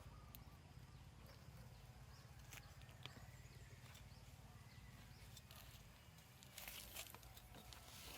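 Near silence: a low steady background hum with scattered faint clicks and rustles, a short cluster of them about six and a half seconds in.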